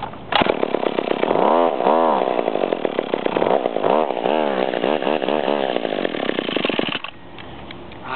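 McCulloch Eager Beaver two-stroke chainsaw catching suddenly and running unevenly, its revs swinging up and down, then stalling after about six and a half seconds. It is hard to start and won't stay running.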